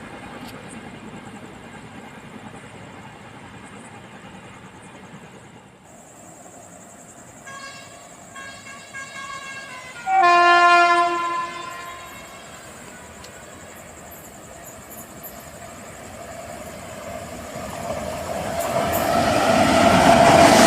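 An Indian Railways train's horn gives a few short toots, then one loud blast about ten seconds in. Near the end, the rumble of the approaching train rises steadily.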